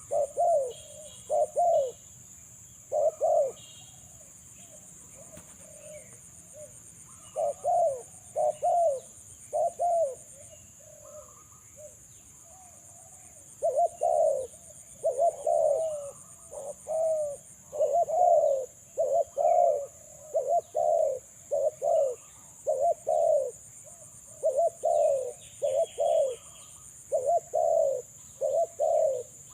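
Spotted doves cooing in repeated phrases of short coo notes. The calls are spaced out with pauses at first, then come in a close, continuous run from about halfway through.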